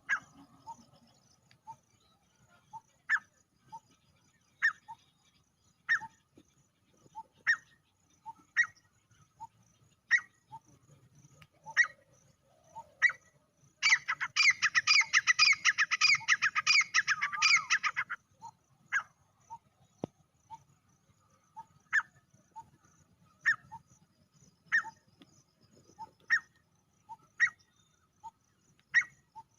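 Male grey francolin calling: short, sharp call notes repeated about every one and a half seconds, with a dense four-second run of rapid notes about halfway through.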